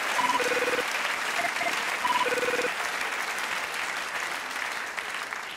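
Audience applause, fading toward the end. Over it, a mobile phone's electronic ringtone plays a short beeping tune twice, about two seconds apart.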